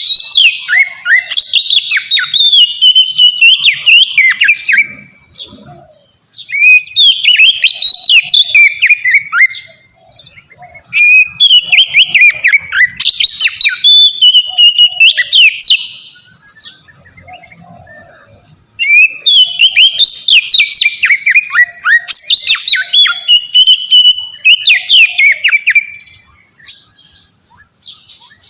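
Oriental magpie-robin singing a loud, varied song of fast whistles and sweeping notes, in four long bursts with short pauses between them and a few short notes near the end.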